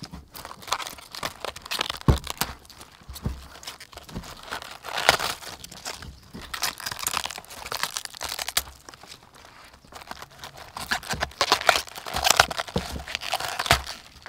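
A raw head of green cabbage being pulled apart by hand: crisp leaves and core tear and crack in a run of crackling, crunchy snaps. It is loudest about five seconds in and again in the last few seconds.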